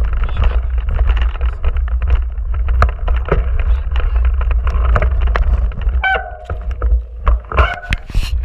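Wind noise buffeting a bike-mounted camera's microphone over the rattle of a Giant Trance 27.5 mountain bike rolling over a rough grass track and gravel, with frequent knocks from bumps. About six seconds in and again near the end come two short high squeals, and the bike jolts over railway ballast with several loud knocks.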